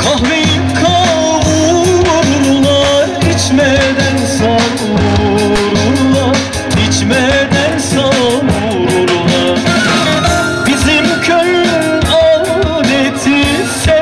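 Turkish folk dance music playing loudly: a wavering melody line over a dense, steady instrumental accompaniment.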